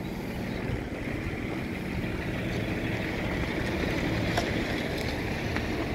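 An engine idling steadily: a low, even rumble with a faint hum.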